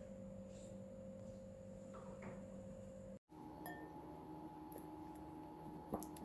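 Faint room tone with a steady low hum. Near the end comes a light clink of a spatula against a glass mixing bowl as powdered sugar is stirred into butter.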